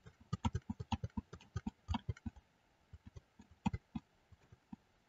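Computer keyboard keys tapped repeatedly, a fast run of faint clicks for the first two seconds or so, then a few scattered taps: repeated Ctrl-Z undo presses.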